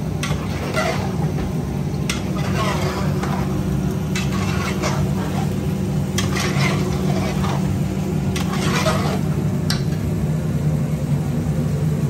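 A long metal spoon stirring and scraping thick chicken bhuna in a large aluminium pot, in strokes every second or two with a few sharp clinks against the pot, over light sizzling and a steady low hum.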